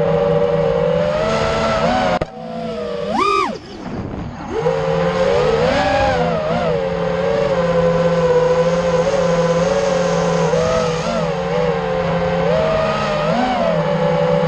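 An FPV quadcopter's four Emax RS2306 2400kv brushless motors spinning Dalprop Cyclone 5-inch three-blade props, heard from on board as a steady buzzing whine that wavers in pitch with the throttle. About two seconds in it drops away suddenly, then surges in a quick rising-and-falling whine. It settles back into a steady buzz from about five seconds in.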